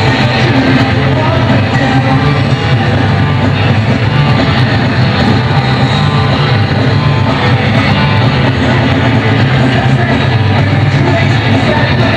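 Pop-punk band playing live, loud and continuous: electric guitar, bass guitar and a drum kit.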